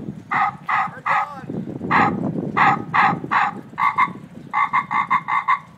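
PA horn speaker on a VW Thing sounding a run of short honking blasts, a few a second, coming quicker near the end, over a low rumble.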